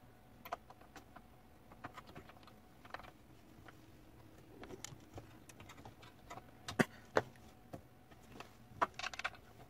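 Scattered light clicks and taps of a small hand tool on plastic parts of the range's control panel, with two sharper clicks about seven seconds in and a quick run of clicks near the end.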